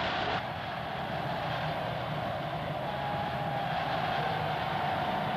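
Steady rumble of vehicle engines under a hiss, with a slight shift in the sound about half a second in.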